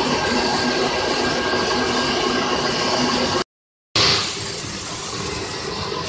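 A 13-die aluminium rod breakdown wire drawing machine running: a steady mechanical hum and hiss with several constant tones. It cuts out for about half a second a little past the middle, then comes back somewhat quieter.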